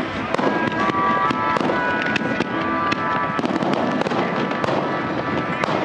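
Aerial firework shells bursting in a rapid, irregular series of sharp bangs and crackles, over background music with held notes.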